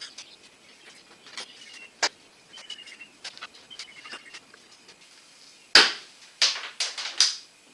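Clips being pried and popped out of a cover over the radiator area of a GMC Sierra 1500: scattered light clicks, a sharp snap about two seconds in, then four louder sharp snaps in quick succession near the end. Faint bird chirps in the background.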